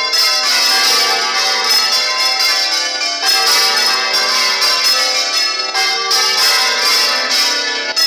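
Several large church bells swinging full circle on their headstocks in a general peal, their strikes overlapping in a continuous, loud clangour of many tones, heard close up from inside the belfry.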